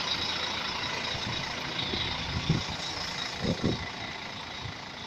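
Road traffic: the steady rumble and hiss of passing vehicles, with a few short low thumps about two and a half and three and a half seconds in. No bus horn sounds.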